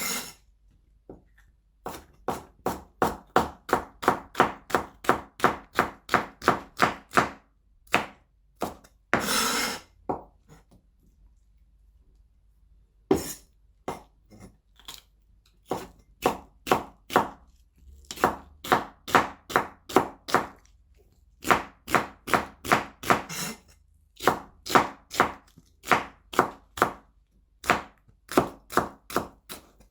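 Knife chopping celery on a chopping board: runs of sharp, even cuts, about two to three a second, broken by short pauses. About nine seconds in there is a brief rasping sound.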